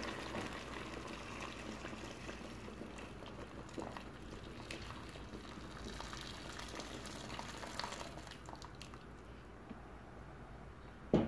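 Boiling water poured in a stream into a pot of spiced chicken pieces, splashing and filling the pot; the pouring stops near the end.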